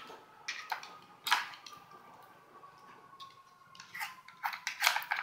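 Nina Ottosson Dog Casino wooden puzzle being worked by a dog's nose and paws: scattered light clicks and knocks of its drawers and plastic pegs against the board. There are a few in the first second and a half, then a quicker run of them near the end.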